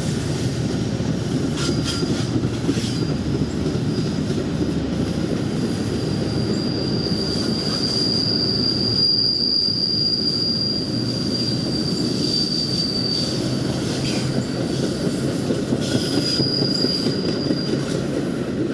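Train rolling past: a steady rumble of the cars, with a high, steady squeal from the wheels on the rails for several seconds in the middle and again briefly near the end.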